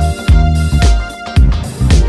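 Background music with a steady bass beat, about two beats a second.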